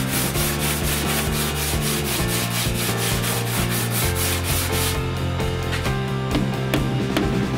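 Sanding on a car's body panels: a rapid, even back-and-forth scraping, about five strokes a second, that stops about five seconds in. Background music with a steady bass line plays underneath.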